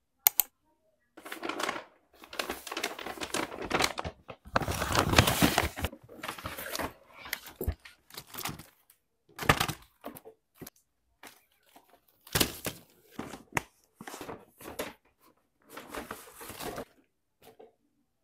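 Rustling and crinkling of a shopping bag and plastic-wrapped stationery as items are pulled out and set down on a desk. It comes in irregular bursts with short pauses and a few sharp taps.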